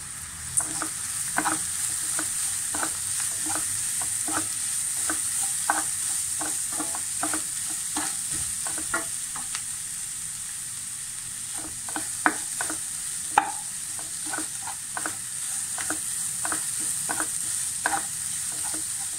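Grated coconut and spices sizzling in hot coconut oil in a kadai, stirred with a wooden spatula that scrapes and knocks against the pan about every half second. This is the coconut masala being roasted.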